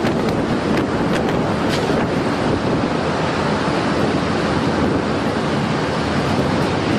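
Tornado-force wind blasting the microphone as a loud, steady rushing noise, with a few sharp clicks in the first two seconds.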